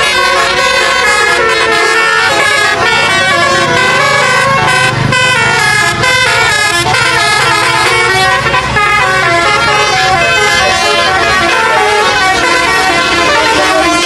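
Bus telolet horn, a set of air horns playing a loud, unbroken tune of stepped notes.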